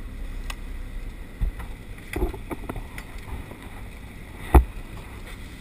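Wind rumbling on the microphone aboard a fishing boat at sea, with a few light knocks and one sharp thump about four and a half seconds in.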